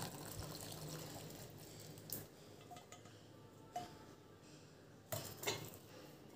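Last of the hot tea trickling through a steel mesh tea strainer into a glass, fading out over the first second or so, then a few light clinks of steel and glass as the pan and strainer are handled.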